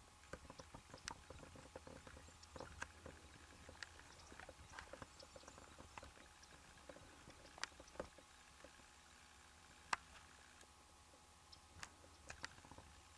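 Near silence with scattered faint clicks and ticks at irregular intervals, the sharpest about ten seconds in.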